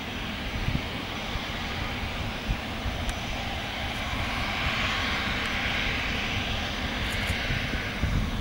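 Dassault Falcon 7X business jet's three turbofan engines running as it taxis back along the runway after landing. A steady jet rush grows louder about four seconds in and eases off near the end.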